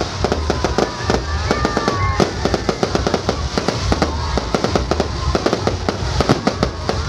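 Fireworks display: aerial shells and crackling effects going off in rapid, overlapping cracks and bangs, many per second.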